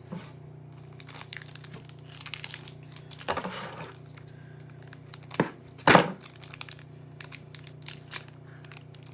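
Foil trading-card pack wrapper being handled and torn open, crackling and crinkling in quick irregular bursts, with a denser stretch about three seconds in. A sharper knock about six seconds in is the loudest sound.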